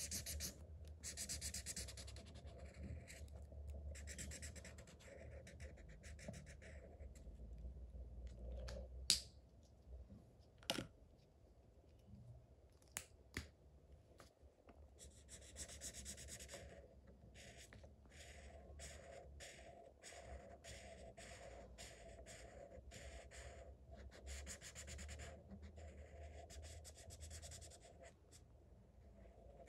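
Felt-tip marker tips scratching across paper in strokes while colouring, quiet. The strokes come in longer runs at first and then as quick back-and-forth strokes, about two a second, in the second half. A few sharp clicks sound in the middle.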